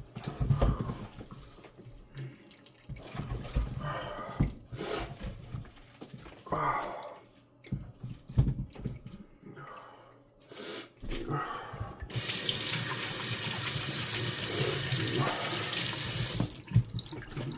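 Scattered small knocks and rustles of handling, then a kitchen tap runs in a steady stream for about four seconds and shuts off suddenly.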